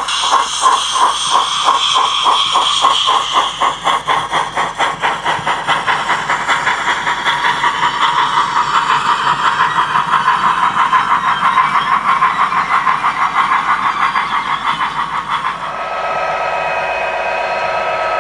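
Sound-fitted model steam locomotive (DCC sound decoder) playing exhaust chuffs with hiss, a steady beat of about four chuffs a second. About fifteen seconds in the chuffing fades, and a steady drone with several held tones takes over.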